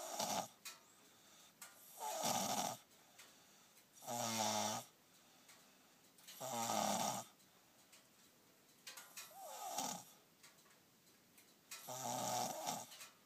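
Snoring, one snore about every two and a half seconds, each under a second long, six in all.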